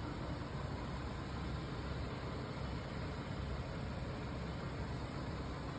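2022 Infiniti Q50's twin-turbo V6 idling steadily.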